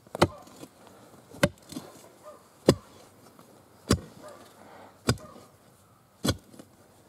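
Steel digging bar jabbed down into stony earth beside a large stone, six sharp strikes about one every 1.2 seconds, as the stone is pried loose.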